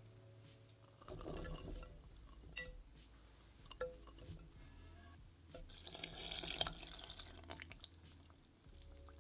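Ingredients going into a bread maker pan: a short rustle of salt being added, then canned sweet corn kernels tipped in with a few soft clicks, then milk poured in, a splashing pour of about three seconds that is the loudest part.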